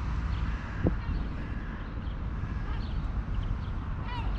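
Outdoor ambience with a steady low rumble and faint scattered bird calls, a short tick about a second in, and a brief seagull call near the end.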